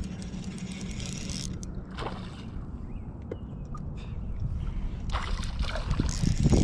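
Water splashing as a hooked smallmouth bass thrashes at the surface beside the boat: a short burst about a second in, then louder, sustained splashing over the last second and a half. A steady low hum runs underneath.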